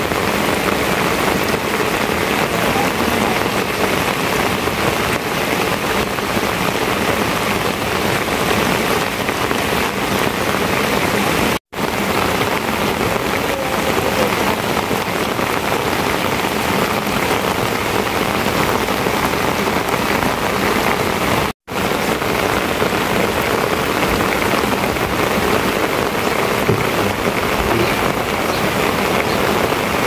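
Heavy rain falling steadily, a dense even hiss. The sound drops out for an instant twice, about 12 and 22 seconds in.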